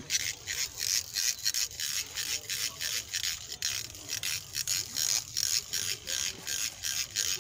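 A fishing reel ratcheting in a steady rhythm, about three or four strokes a second, while a hooked rohu is being played.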